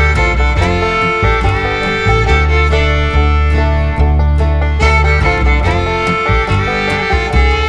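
Background music: a country or bluegrass-style instrumental with fiddle and plucked strings over a steady bass.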